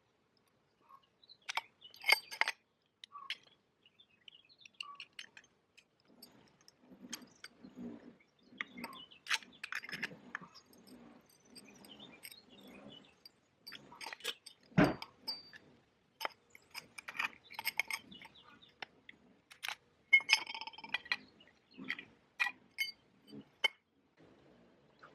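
Scattered clinks, knocks and handling noises of objects being picked up and set down, with one heavier thump about fifteen seconds in.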